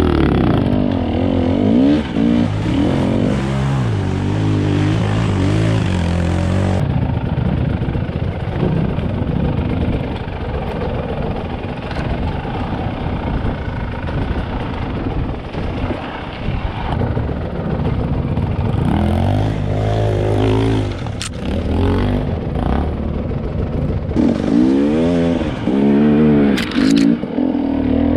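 Enduro dirt bike engines revving up and down over and over as the throttle is worked on a slow, rough trail, with the helmet-camera rider's own bike the loudest. A couple of sharp knocks come in the second half.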